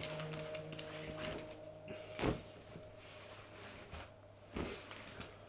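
Rustling and handling of a nylon holdall and the clothes inside it, with two louder brushes of fabric about two and four and a half seconds in. A held music tone fades out in the first second or so.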